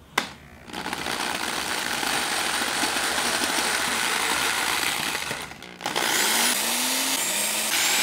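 Electric drill boring new pickguard screw holes into a guitar body. One steady run of about five seconds, a brief stop, then a second run whose motor pitch rises and falls.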